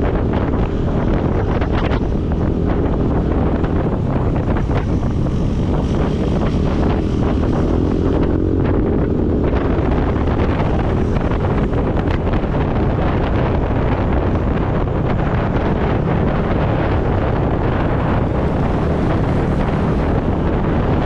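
Wind rushing over the microphone of a riding motorcycle, over the steady sound of its engine and tyres on the road.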